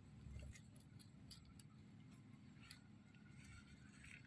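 Near silence: faint low background rumble with a few soft, scattered clicks.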